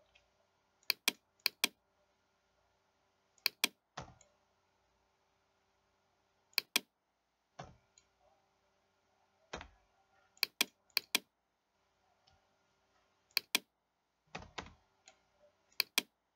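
Computer mouse and keyboard clicking while working in pattern-drafting software: scattered sharp clicks, mostly in quick pairs, with a few softer, duller key taps between them.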